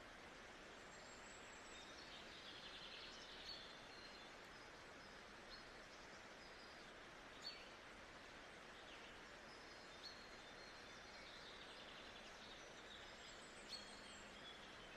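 Faint nature-sounds ambience: a steady soft hiss with scattered short bird chirps every few seconds.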